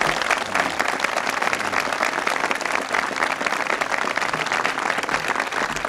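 Crowd applauding steadily: many people clapping at once, with some cheering.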